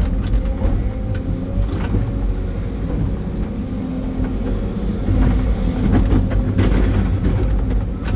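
Sany 385 hydraulic excavator's diesel engine running steadily under load as the boom and bucket work, heard from inside the cab. A few sharp clicks and knocks come a little past the middle.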